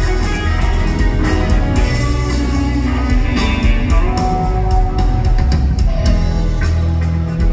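Live rock band jamming at full volume: several electric guitars over electric bass and a drum kit, heard through the PA from the audience.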